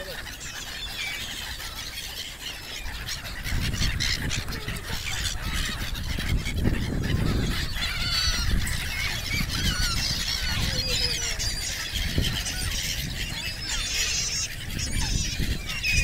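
A flock of gulls calling, with many overlapping short high squealing cries. A low rumble joins in about three seconds in.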